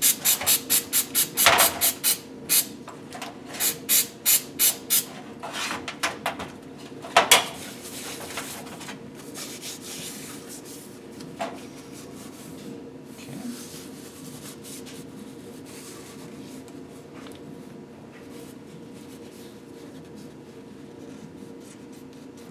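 Hand scrubbing and scraping on an engine piston, cleaning old deposits out of its grooves. It comes as quick strokes, about four a second, over the first few seconds, then a few scattered strokes, after which only a faint steady background remains.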